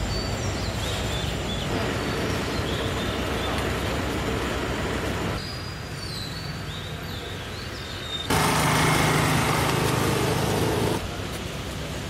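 Outdoor background noise cut from several short clips, with birds chirping over a steady hum in the first half and a louder stretch of dense noise from a little after 8 seconds to about 11 seconds.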